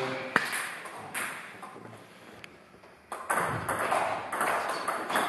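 Table tennis balls clicking off bats and tables. A few scattered clicks come first, then a near-quiet stretch, then from about three seconds in a quick run of strokes and bounces as a rally gets going.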